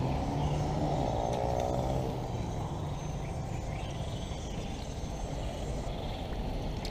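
Steady low rumble of road traffic, with a vehicle engine passing in the first couple of seconds.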